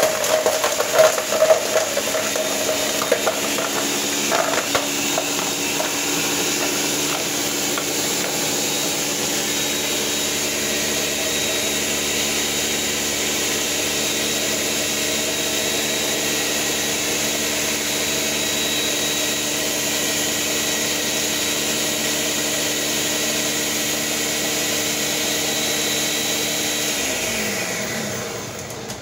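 Ninja countertop blender running on frozen strawberries. Chunks knock and rattle in the jar for the first five seconds or so as the fruit breaks up, then the motor runs smoothly. Near the end it winds down and stops.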